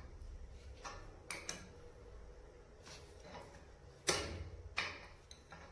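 Adjustable spanner on a brass fitting on copper pipe as it is tightened up: a series of sharp metal clicks and knocks, the loudest about four seconds in.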